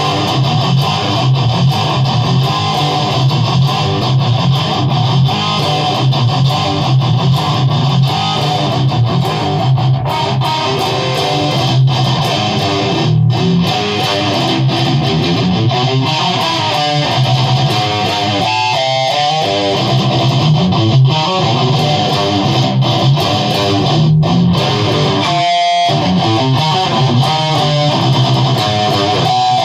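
Electric guitar played fast, picked riffing with a dense, full sound over a steady low rumble. It thins briefly to a few ringing single notes about two-thirds of the way through and again near the end.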